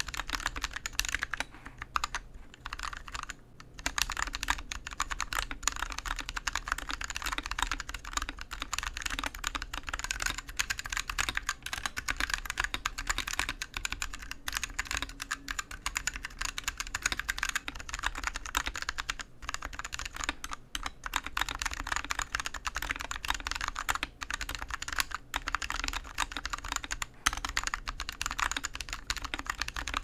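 Continuous fast typing on a TADA68 mechanical keyboard with 68 g Outemu Sky tactile switches in a wooden case: a dense run of key clicks and clacks. Part of it is the switches stock, unlubed, and part with them lubed.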